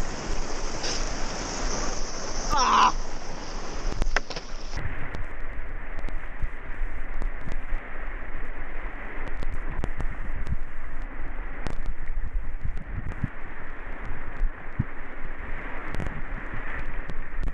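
Whitewater rushing and churning around a kayak, heard close up from a camera mounted on the boat, with scattered splashes and knocks of water against the hull and camera.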